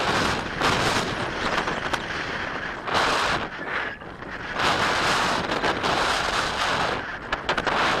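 Wind rushing over the microphone of a Bixler 3 RC glider's onboard camera as the glider flies low and unpowered over the field, swelling and dipping in uneven surges. A few faint ticks come near the end.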